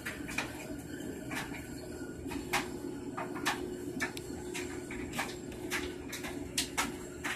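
Steady low hum of an aquarium pump, with irregular sharp clicks and ticks about once or twice a second.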